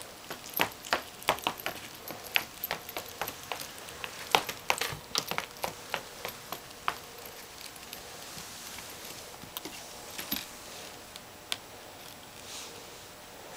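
A small dog's shoes clicking and tapping irregularly on a hardwood floor as she walks. The taps come thick for the first seven seconds or so, then thin out to a few scattered ones.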